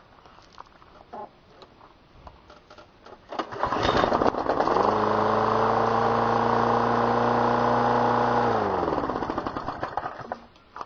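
John Deere walk-behind mower's 6.5 hp Briggs & Stratton Intek single-cylinder engine cold-starting after priming. It catches about three and a half seconds in and runs steadily for about four seconds. Then it slows, falling in pitch, and stops near the end.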